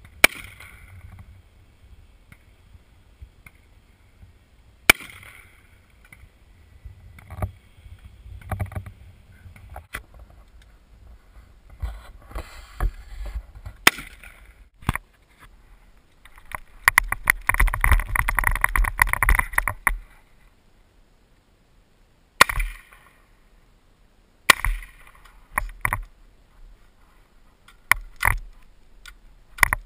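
Gunshots: single shots a few seconds apart, then a fast string of shots lasting about three seconds past the middle, then more single shots near the end.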